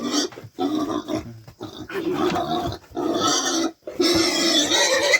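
Pigs squealing: about five loud, harsh squeals one after another with short breaks between them.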